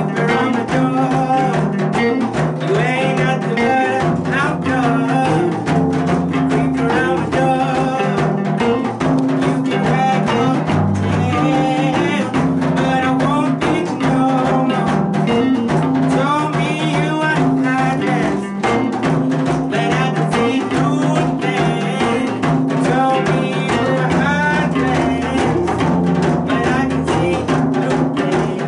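Live band playing a rock and roll song: drum kit keeping a steady beat, with acoustic and electric guitars over a stepping bass line.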